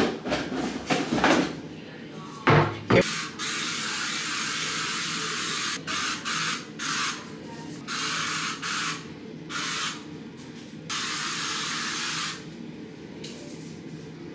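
A few knocks and clatter of items being handled, then an aerosol spray sunscreen sprayed in a series of short hissing bursts, starting and stopping repeatedly, some about a second long.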